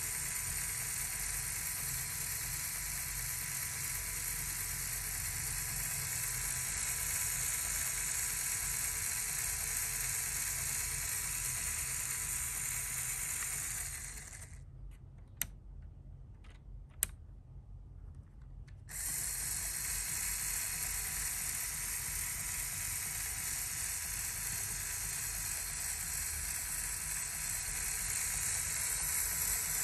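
Electric motor of a LEGO Technic RC chassis running its plastic gearbox, drivetrain and V6 piston engine: a steady whirring, ratcheting gear clatter. About halfway through it stops for about four seconds, with two sharp clicks in the pause, then starts again.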